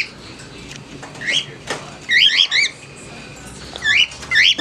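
Pet birds calling agitatedly: loud, shrill chirps that swoop up and down in pitch, in quick runs of two or three. The runs come about a second in, around two seconds in and again near the end. There is one sharp click partway through.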